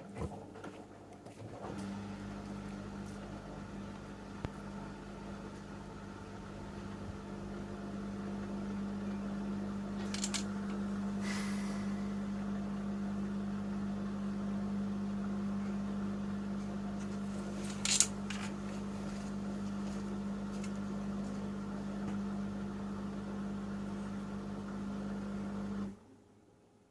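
Panasonic inverter washing machine's motor turning the drum at a steady, even pitch, trying to distribute an unbalanced load for the final spin, with a few sharp clicks from the drum; it cuts off abruptly near the end without ramping up to spin speed.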